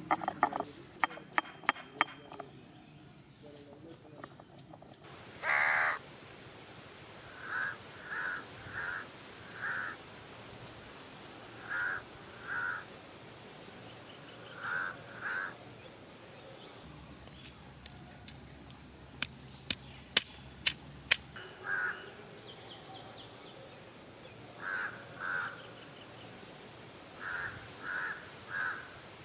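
Crows cawing again and again in short runs of two or three calls, with one louder caw about six seconds in. Sharp clicks or knocks come in quick clusters near the start and again about two-thirds of the way through.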